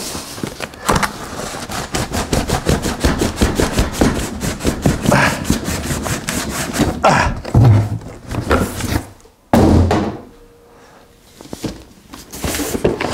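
Cardboard boxes rubbing and scraping as an inner box is worked out of an outer cardboard shipping box, with a rapid run of scratchy strokes. A heavy thud comes about nine and a half seconds in.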